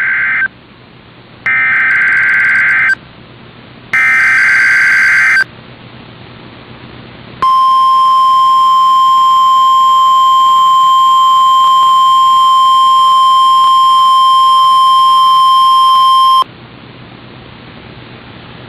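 NOAA Weather Radio's Emergency Alert System test signal. It opens with the end of one SAME digital header burst and two more full bursts of harsh buzzing data, about 1.5 s each with a second of hiss between them. Then the 1050 Hz weather radio alarm tone holds steady for about nine seconds and cuts off.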